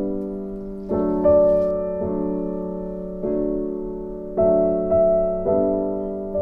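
Background piano music: slow, soft chords, each struck and left to fade before the next.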